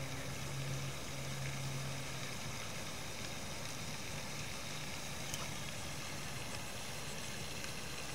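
Steady outdoor background hiss with a low, engine-like hum that fades after about two and a half seconds.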